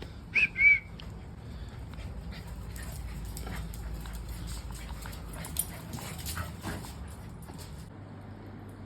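German shepherd giving two short high whines about half a second in, followed by several seconds of rustling and light scattered clicks.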